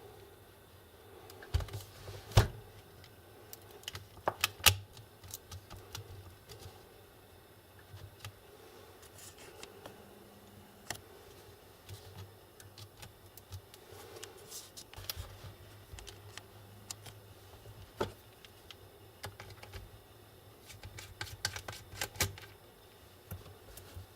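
Irregular clicks, taps and light knocks of small tools, screws and plastic laptop parts being handled, with louder bunches of clicks about two seconds in, around four to five seconds in, and near the end.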